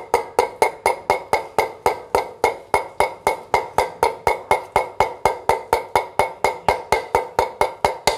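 Hammer tapping a new 6202 ball bearing into an e-rickshaw front wheel hub: light, even taps, about five a second, each with a short metallic ring.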